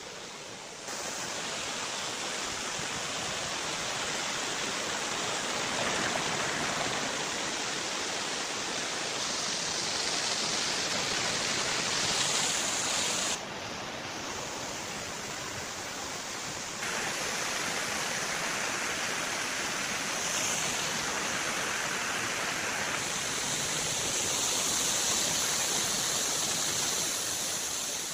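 Waterfall cascading over rocks: a steady, dense rush of falling water. Its level and tone shift abruptly a few times.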